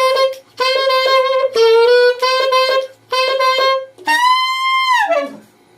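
Saxophone playing a note A with false fingering: four short held notes at the same pitch, their tone colour flickering as extra keys are pressed over the A fingering. Then a higher held note that bends down in pitch as it ends.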